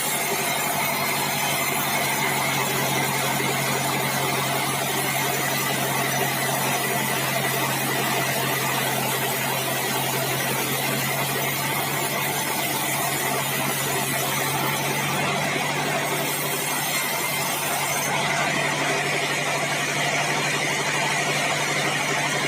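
Sawmill band saw running steadily while sawing bengkirai hardwood, a constant low engine hum under a high whine and hiss.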